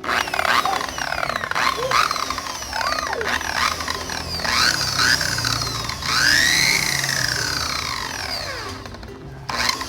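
Electric car polisher (buffer) motor whining, its pitch rising and falling again and again as it speeds up and slows down while it buffs rubbing compound into the paint.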